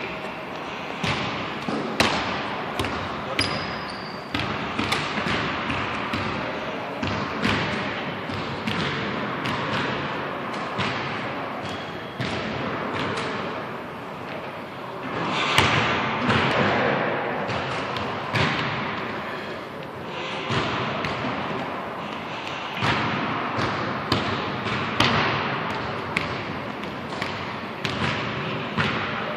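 Basketballs bouncing on a gym's hardwood floor: irregular sharp thuds, roughly one or two a second, over a steady background of gym noise.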